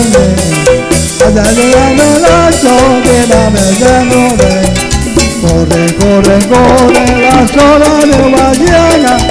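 Live cumbia band playing at full volume: electric guitar melody over timbales, congas and bass, with a steady, fast percussion beat.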